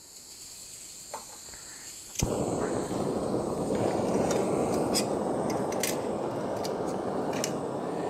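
Canister gas backpacking stove: gas hissing from the opened valve, then the burner lights with a sharp pop about two seconds in and runs steadily, with a few metallic clinks as a pot is set on it.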